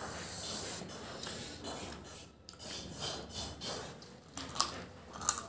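Close-mic mukbang eating sounds: a man chewing and sucking on desi chicken on the bone by hand, with wet mouth noises, breathing and scattered crackles. Two sharp clicks come near the end.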